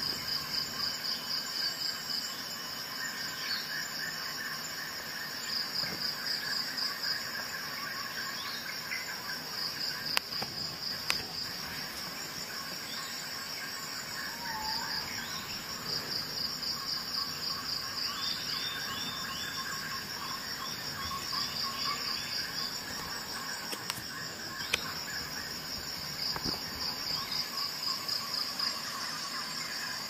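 Insects chirping in rapid pulsed trains that come and go every second or two, with a few single clicks.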